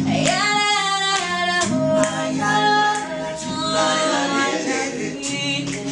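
A cappella vocal group singing: a high lead voice holding long notes that glide between pitches, over low backing voices repeating a bass figure.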